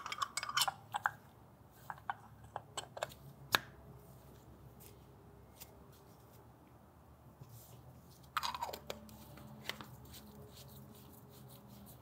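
Handling noise of Graco Fusion PC spray foam gun parts: small metal clicks and taps in the first few seconds with one louder knock about three and a half seconds in, then a brief scrape a little past the middle, as the air piston is seated and the metal air housing is fitted and threaded onto the aluminum handle.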